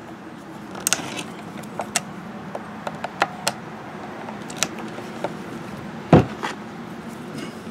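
Screwdriver clicking and scraping on metal as it works the carburetor mounting screws inside a chainsaw's cramped carburetor compartment, a sharp click about every second. A single dull thump a little after six seconds, over a steady low background hum.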